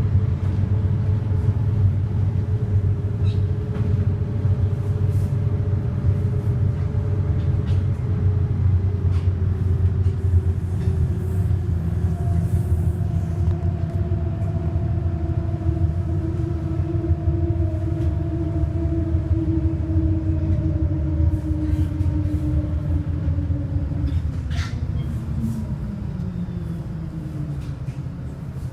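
City bus running, with a steady low rumble and a whine from the drivetrain that drifts slowly and falls in pitch over the last few seconds.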